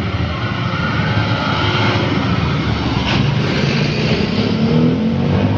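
Trucks and motorcycles passing close by on a road, their engines running in a steady drone whose pitch slowly rises. There is a brief sharp noise about three seconds in.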